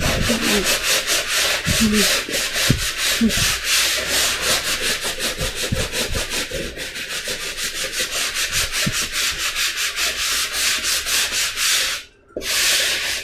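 Hand sanding with a slightly damp sanding sponge over dried joint compound on a wall, a rapid, even back-and-forth scrubbing hiss at about four strokes a second. The strokes stop shortly before the end, followed by one longer rub.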